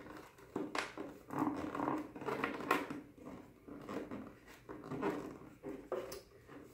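Thin ABS plastic helmet halves being squeezed and worked together by hand along a freshly glued seam: irregular small creaks, clicks and rubbing scrapes.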